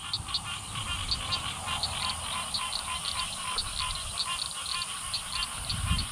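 A chorus of frogs calling from the pond: short calls repeating several times a second. A steady high insect drone sits beneath them.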